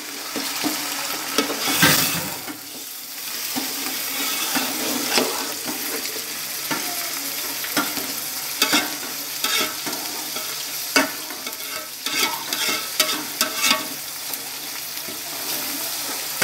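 Mutton pieces and onions sizzling in a large metal pot while a long metal spoon stirs them, scraping and knocking against the pot now and then. The meat is being browned dry, before any water goes in.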